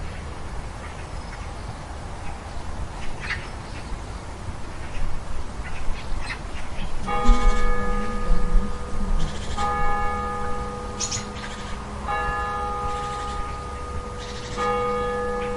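Church tower bell striking the hour for nine o'clock: a single bell struck slowly, one stroke about every two and a half seconds, starting about seven seconds in, each stroke ringing on into the next. Before the strokes, outdoor ambience with short scattered bird calls.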